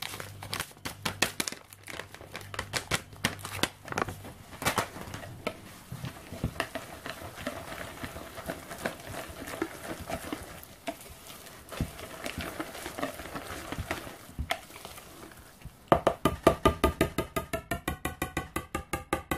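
A wire whisk stirring a thick seed-and-ground-almond mixture in a plastic mixing bowl, with irregular scraping and clicking against the bowl, and the almond packet crinkling in the first few seconds. About three seconds before the end the whisk breaks into fast, regular beating at around seven strokes a second.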